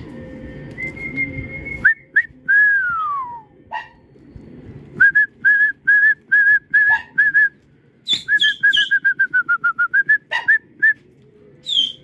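A person whistling to a flock of flying pigeons: a held note, then a long falling whistle, then a string of short, evenly spaced whistles, and near the end a quick run of notes that dips slightly in pitch.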